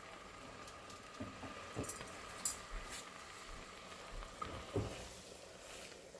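Hot, thick sugarcane-juice kashayam being strained: a faint, even trickle of syrupy liquid with a few light knocks of utensils against the pot or strainer.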